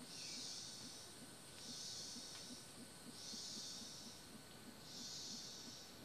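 A calling rainforest insect: faint, high-pitched hissing pulses about a second long, repeating about every second and a half, four times.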